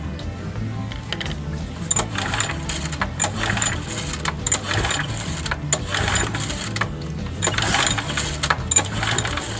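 Irregular metallic clicking and rattling of hand tools working on small engine parts, starting about two seconds in and busiest near the end.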